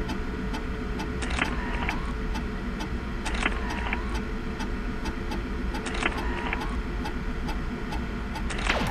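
Sound-designed soundtrack under a motion graphic: a steady low mechanical drone with a short swelling whoosh about every two to three seconds.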